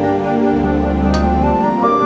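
Background music: a soft new-age style track with a sustained melody over a held bass.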